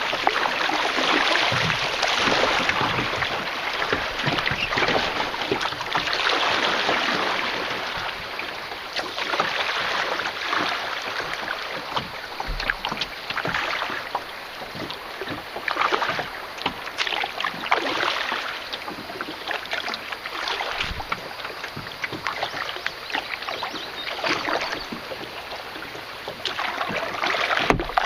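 Canoe paddle strokes dipping and splashing in river water, the splashing swelling and fading every couple of seconds.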